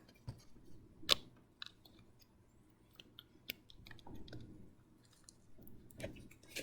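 Small plastic clicks and faint crunching as a microcontroller's header pins are pressed deeper into a solderless breadboard, with one sharper click about a second in. The push is meant to seat the pins on the breadboard's metal strips, which a continuity test had shown they were not reaching.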